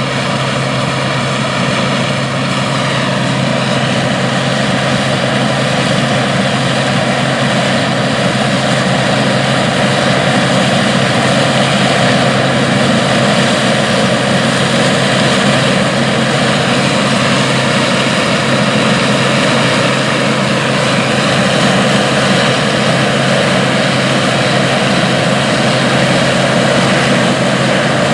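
1977 International 815 combine running steadily under load while harvesting corn: a loud, unbroken drone of engine and threshing machinery with a constant low hum underneath.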